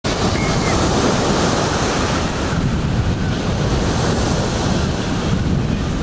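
Surf breaking and washing up onto a sand-and-pebble beach: a loud, steady rushing of water, with wind buffeting the microphone.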